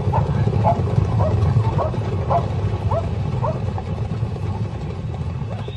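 Hyenas yelping in a series of short calls, several a second, over a continuous low rumble.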